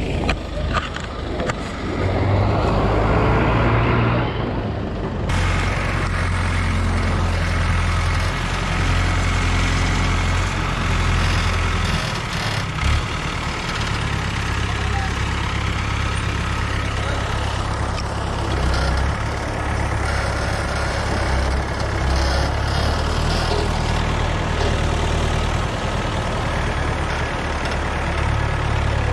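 Mobile recovery crane's diesel engine running steadily with a low drone that shifts in pitch now and then as it works the lift. A louder rush of noise fills the first five seconds and cuts off suddenly.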